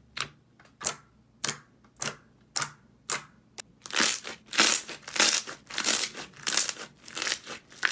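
Slime being pressed and squeezed by hand in a steady rhythm, about two presses a second, each making a short crisp sound. The presses grow louder and longer about halfway through.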